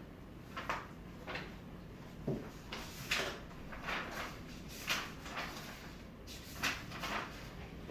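A string of short handling sounds, about ten brief rustles and scrapes spaced irregularly over several seconds, with no speech.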